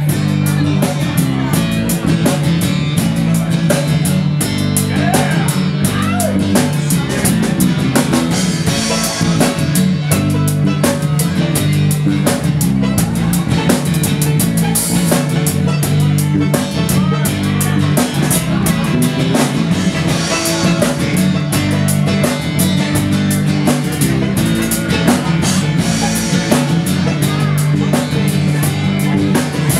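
Live rock band playing: guitars over a drum kit keeping a steady beat.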